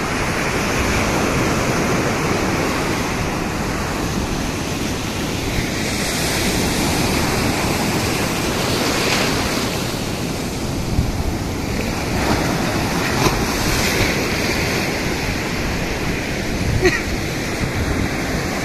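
Sea surf washing in over a shallow beach: a steady rush of breaking waves and foam that swells and eases every few seconds, with wind buffeting the phone's microphone.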